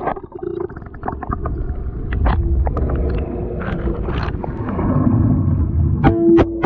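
Underwater sound beneath a boat, picked up by a camera held under the surface against the hull: a steady low rumble with scattered clicks and a few short tones, the strongest tone about six seconds in.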